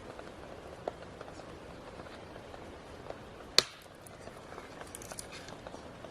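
Handling noises while a tent is being pitched: light rustles and small knocks, with one sharp click about halfway through that is the loudest sound.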